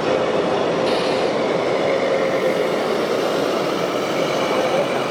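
Small electric motor and gearbox of an RC model tractor running steadily, a continuous grinding whine with a faint steady hum underneath.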